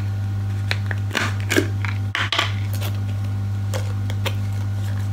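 Plastic screw cap twisted off a gummy-supplement jar: a scattering of short clicks and knocks, busiest a second or two in, over a steady low hum.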